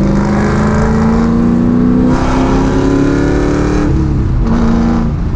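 Ford 4.6L three-valve V8 of a Mustang GT, breathing through long-tube headers, an X-pipe and a Borla ATAK exhaust, accelerating hard. The engine note climbs steadily for about four seconds, then drops sharply at an upshift and carries on at lower revs.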